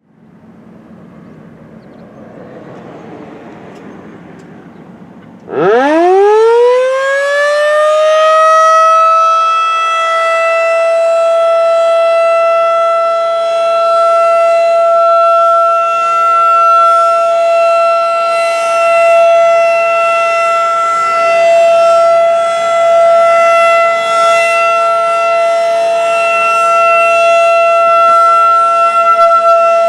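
Federal Signal 2001-DC roundback tornado siren starting up about five seconds in. Its pitch climbs quickly and settles into a loud, steady single-tone wail, swelling and dipping slightly in loudness. Before it starts there is only faint background noise.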